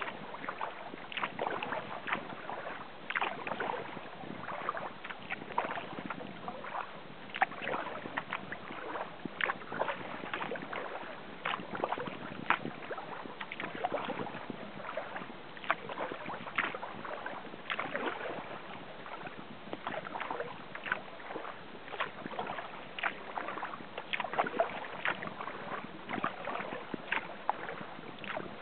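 Sea kayak paddle blades dipping into calm water, a steady run of short splashes and drips from the strokes.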